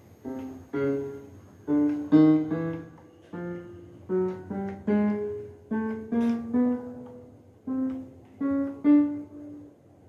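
Yamaha PSR-I425 keyboard sounding single notes through its own speakers as keys are pressed one after another, about two a second, each note starting sharply and dying away. The keys respond, so the repair of the rubber contact strip has worked.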